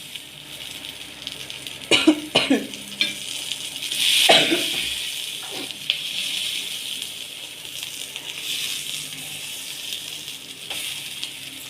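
Chicken pieces sizzling as they fry in oil in a pan, a steady hiss that swells about four seconds in.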